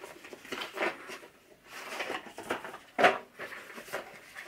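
Cardboard boxes being handled and moved by gloved hands: light rustling and scattered small knocks, with one sharper knock about three seconds in.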